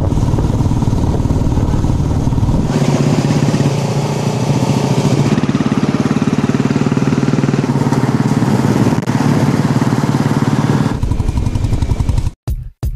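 Royal Enfield Meteor 350's single-cylinder engine running steadily at cruising speed under a motorcycle ride, with heavy wind rush on the microphone. It cuts off sharply about a second before the end.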